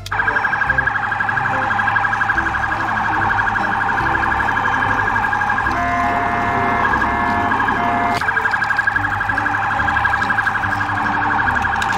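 Police car siren sounding continuously in a fast, wobbling warble. Around the middle, a few short steady tones sound over it.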